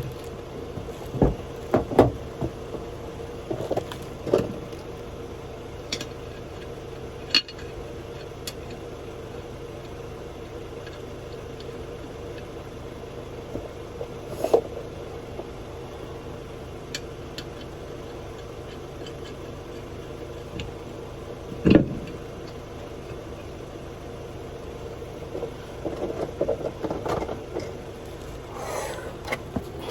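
Steady mechanical hum, like an engine running, with a few sharp metallic knocks and clanks spread through it, the loudest about fifteen and twenty-two seconds in, from a spare wheel and lug nuts being handled and fitted to the hub.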